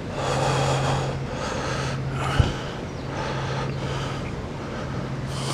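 A person breathing in puffs close to the microphone, about one a second, over a steady low hum, with a single thump about two and a half seconds in.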